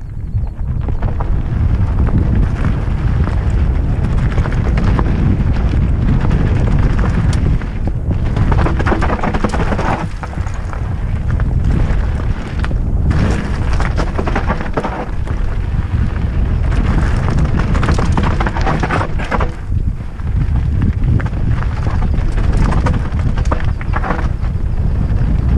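Wind buffeting a helmet-mounted camera's microphone during a fast mountain-bike descent of a rocky gravel trail, with tyres crunching over loose stones and the bike rattling over rocks.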